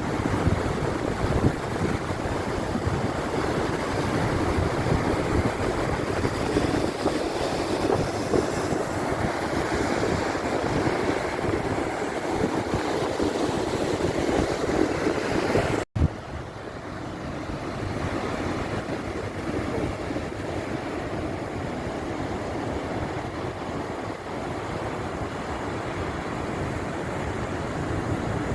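Stormy sea surf, waves breaking and rushing continuously, with wind buffeting the microphone. About sixteen seconds in the sound drops out for an instant, and after that the surf is a little quieter and duller.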